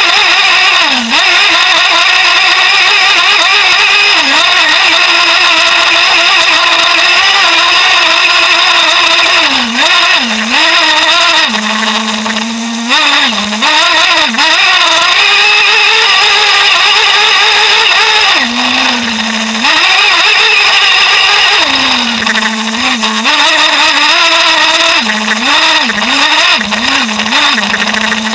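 Traxxas Jato RC truck's nitro engine running at high revs, heard close up from a camera mounted on the truck. Its pitch drops sharply several times, mostly in the second half, as the throttle is let off, then climbs back.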